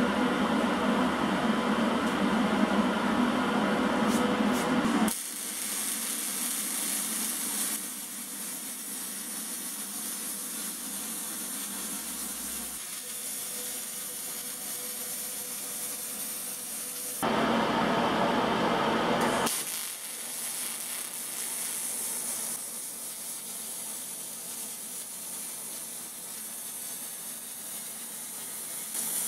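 MIG/MAG welding arc on sheet steel, a steady crackling hiss as the bead is laid along the hull seam. It comes in several stretches that change level abruptly, with louder ones near the start and about two-thirds through.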